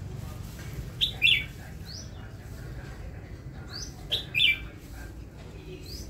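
Red-whiskered bulbul singing: a short, loud two-note phrase, the second note falling in pitch, about a second in and again about four seconds in, with fainter rising whistles in between.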